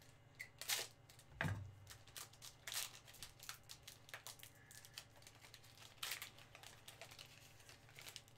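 Plastic trading-card pack wrappers crinkling and tearing as a baseball card pack is handled and torn open, in many short crisp rustles, with a soft thump about a second and a half in.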